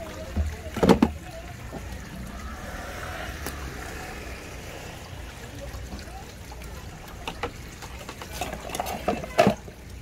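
Kitchen knife cutting open sea squirts on a wet wooden cutting board: sharp knocks of the blade on the board about a second in, then quieter wet handling, and another cluster of knocks near the end.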